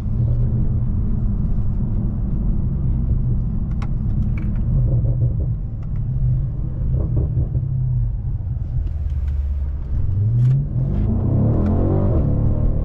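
BMW M550i's twin-turbo V8 and road noise heard from inside the cabin while driving: a steady low drone, with a few light knocks over the uneven road. About ten seconds in, the engine note climbs as the car accelerates.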